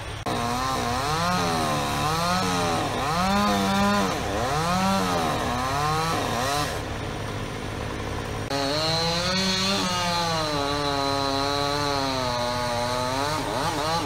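Chainsaw running in the hands of a climbing arborist high on a tree trunk: revved up and down in short pulses for the first six seconds or so, dropping back briefly, then held at high revs from about eight and a half seconds in as it cuts into the trunk.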